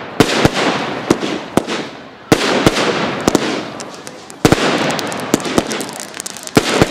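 Aerial firework shells bursting overhead: about a dozen sharp bangs at uneven intervals, each trailing off in a fading hiss, with the two loudest about two and a half and four and a half seconds in.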